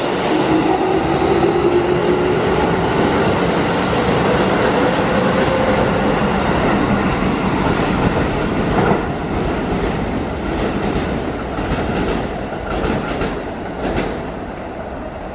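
Keikyu 1000-series electric commuter train accelerating away from the platform: the traction motors' whine rises in pitch over the first several seconds, with the wheels clacking over rail joints. The whole sound then fades as the train draws away.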